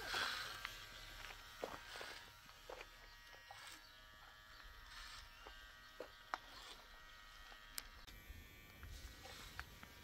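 Electric hair clippers running steadily and faintly as they cut short hair, with a few light clicks scattered through.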